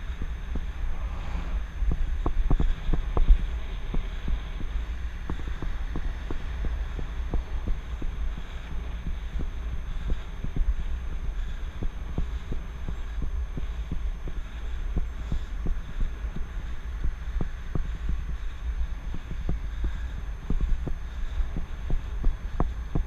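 Wind rumbling over a helmet-mounted GoPro's microphone while cycling, a steady low buffeting, with frequent small irregular knocks from the bike and mount jolting over the path.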